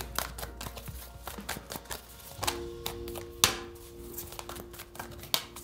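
A deck of tarot cards being shuffled by hand: a run of soft, quick card clicks and slides, with one sharper snap about three and a half seconds in. About two and a half seconds in, a low held musical chord comes in underneath.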